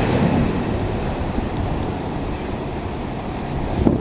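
Passenger train of stainless-steel coaches rolling away on the rails, a steady rumble that slowly fades as it recedes, with a few faint high clicks about a second and a half in.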